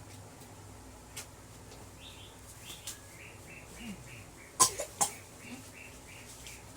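A toddler coughing twice in quick succession about four and a half seconds in, the cough that is the child's complaint. Under it is a run of short, high chirps repeating several times a second.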